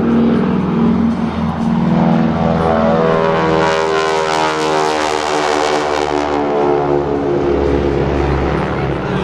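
Formation of North American SNJ-2 Texan trainers flying low overhead, their radial engines and propellers droning. The pitch falls as they pass, loudest about halfway through.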